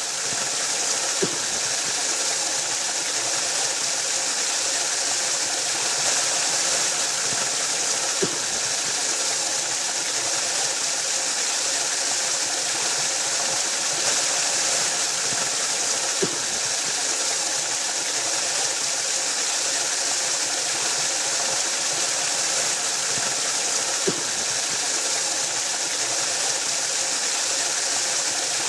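Waterfall: water falling and rushing in a steady, hissing roar, with a few faint brief clicks.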